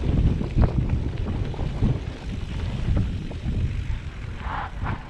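Specialized Turbo Levo electric mountain bike riding a dirt singletrack: wind buffets the camera microphone over a loud low rumble, with irregular knocks and rattles from the tyres and frame over bumps. It grows quieter near the end.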